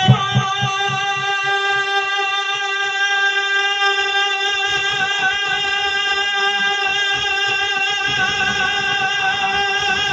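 Devotional naat music: one long held melodic note wavering slightly in pitch, over a quick drum beat.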